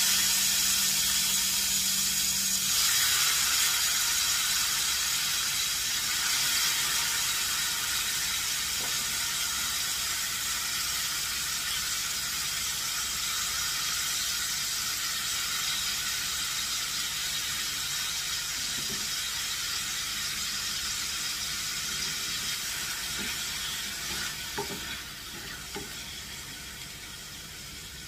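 Mixed vegetables that were soaked in hot water sizzling in hot oil in a frying pan. The sizzle is loudest as they go in and slowly dies down, with a few light knocks near the end.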